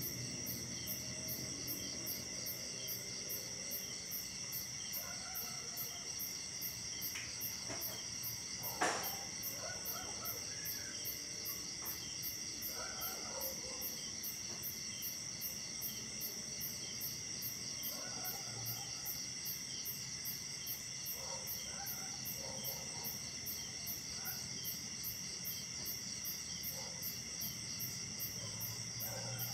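Night insect chorus: several steady high-pitched trills layered together, one with a fast even pulsing. A single sharp click about nine seconds in.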